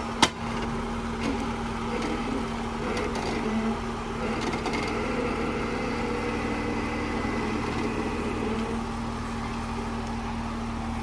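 Off-road vehicle engine running steadily at low speed while rock crawling, with one sharp knock about a quarter second in.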